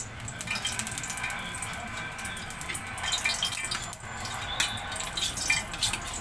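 Cooking oil heating in an aluminium frying pan over a gas flame, with irregular small crackles and pops over a steady sizzle.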